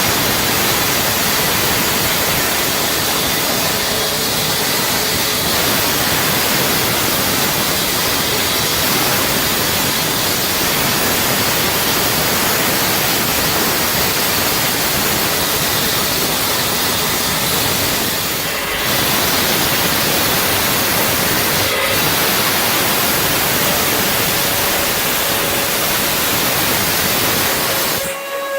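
Power saw cutting, a loud, even hiss-like noise that eases off briefly about eighteen seconds in and again near the end.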